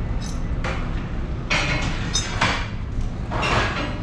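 A handful of short scraping and clanking sounds as a heavy steel tyre-handling frame is moved against a large loader tyre, over a steady low hum.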